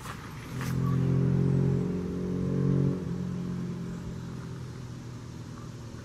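A motor vehicle's engine running, a steady low drone. It comes in suddenly about half a second in, drops sharply near the three-second mark, then fades away.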